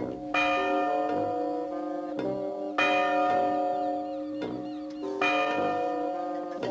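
Bells chiming in a repeating phrase of several ringing notes, a new phrase struck about every two and a half seconds, three times.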